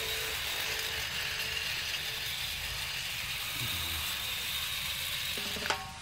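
Battery-powered HO-scale CC206 model locomotive running at full power around plastic track: a steady whirr and rattle from its small electric motor, gearing and wheels.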